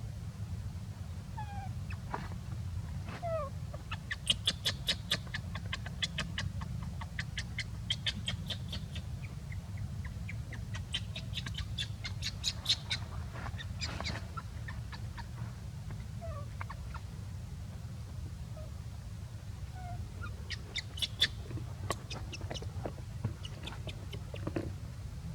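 A young monkey making soft vocal sounds while resting: short falling squeaks and bursts of rapid clicking chatter, over a steady low rumble.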